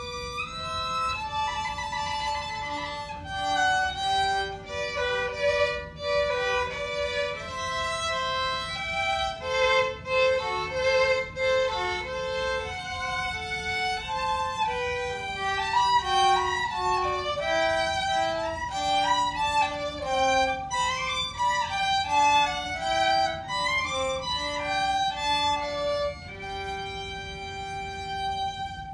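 A small ensemble of violins playing a lively piece together, with quick moving lines that settle onto a long held chord near the end.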